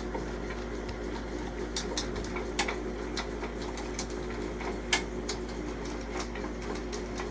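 Electric drain snake running with a steady motor hum as its spinning cable feeds down a shower drain, with sharp irregular clicks and ticks of the cable.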